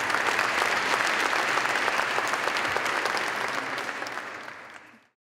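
Audience applauding, a dense patter of many clapping hands that dies away over the last second and cuts off abruptly about five seconds in.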